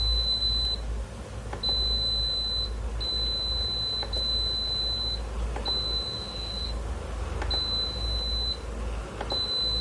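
Induction stove's control-panel buzzer beeping, a high steady tone about a second long, repeated about eight times with short gaps, each beep answering a press of the freshly resoldered power and control buttons. A steady low hum runs underneath.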